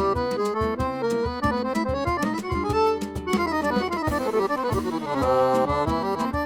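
Accordion playing a lively instrumental piece: quick melody notes over a steady pulse of bass-button chords, with a fast run of notes sweeping down and back up in the second half.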